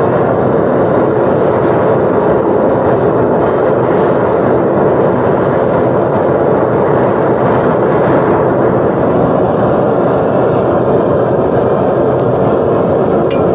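Propane burner of a Devil Forge furnace running flat out with a steady, even rushing noise, heating a crucible of molten copper. A couple of sharp clicks near the end.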